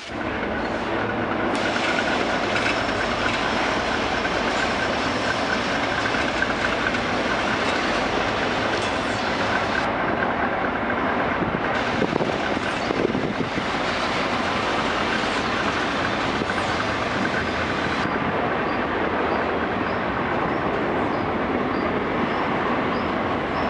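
Freight train passing close by: the diesel-electric locomotives (an EMD SD70ACe/45 and a GE C30-7) run past during the first half, then empty hopper wagons roll by with a steady rumble and clatter of wheels on the rails. A few faint wheel squeals come near the end.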